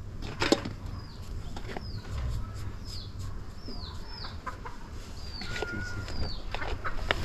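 A bird chirping: a string of short, high chirps that fall in pitch, roughly one or two a second, with a few light clicks and knocks in between.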